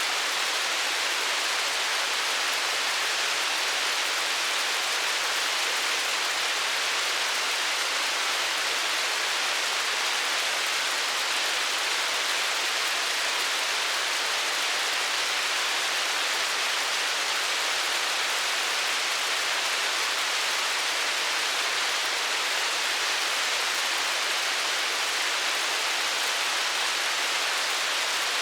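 Hailstorm: a dense, steady patter of hail and rain on surfaces, with no single hits standing out.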